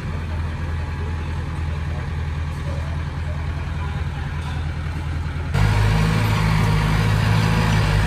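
Diesel engine of heavy earthmoving machinery running steadily with a low, even hum. About five and a half seconds in, the sound abruptly becomes louder and deeper.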